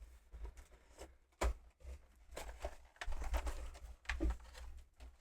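Soft handling noises of trading cards and box contents being sorted: scattered light taps and rustles, with one sharper tap about a second and a half in.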